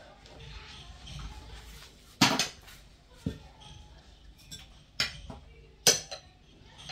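Ceramic plates and small serving dishes clinking as they are set down on a table, with four sharp clinks, the loudest about two seconds in.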